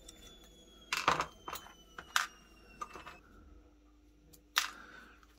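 About half a dozen sharp metallic clicks and clinks of small hand tools and a screw handled against a steel bench vise and the gun spring clamped in it. The loudest come about a second in and again near the end, some with a brief faint ring.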